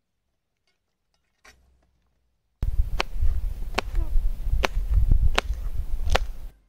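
A kitchen knife chopping vegetables on a plastic cutting board: five sharp knocks, about one every 0.8 seconds, starting about two and a half seconds in, over a steady low rumble.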